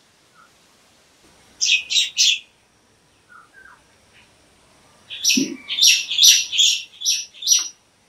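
A bird calling in short, harsh notes: three quick ones about a second and a half in, then a run of about six louder ones from about five seconds in.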